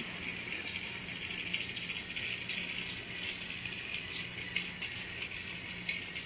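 Small electric motor of a battery-powered toy train, running with a steady whir and a fine rattle from its gears.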